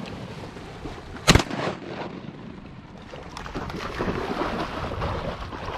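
A single shotgun shot about a second in, sharp with a short echo. It is followed by a rising, steady sloshing of water.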